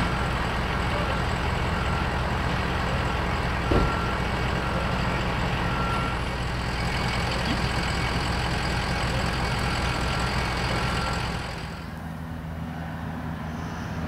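Fire trucks idling with a steady engine drone, and a short high beep repeating on and off over it. A single knock comes about four seconds in, and near the end the drone drops in level and changes.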